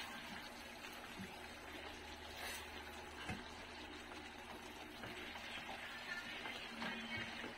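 Vegetables and chicken simmering in a thickened sauce in a stainless steel pan, stirred with a utensil that clinks lightly against the pan a few times.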